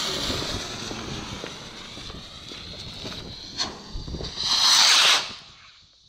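Small firework ring rocket (a "Double Ring") launching with a loud hiss that slowly fades as it climbs. Two sharp cracks come near the middle, then about four and a half seconds in a louder hissing burst lasting under a second, which cuts off abruptly.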